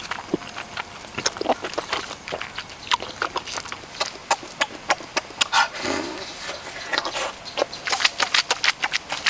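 Close rustling and crackling of a leafy fruit-tree branch being handled as ripe fruit is picked by hand, a dense run of short clicks and snaps.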